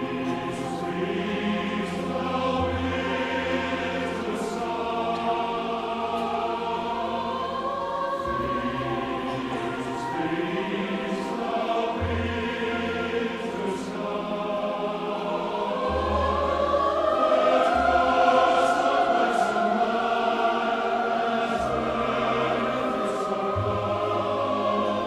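Mixed choir singing in sustained chords with a chamber orchestra, the low bass line moving under it. The sound swells to its loudest a little past the middle.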